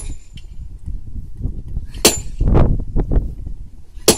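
Sledgehammer striking a hafted steel set held on a rail at a thermite weld, three sharp metallic clangs about two seconds apart, each with a short ring. This is the hand-trimming of the hot excess weld metal off the joint.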